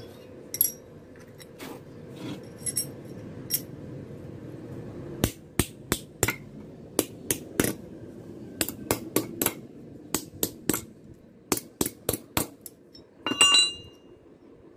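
Ball-peen hammer striking a metal piece clamped in a small bench vise: about two dozen sharp, irregular blows, some in quick pairs, from about five seconds in. Before that, a few light metallic clinks as the parts are handled, and near the end a ringing metallic clatter as a part is set down.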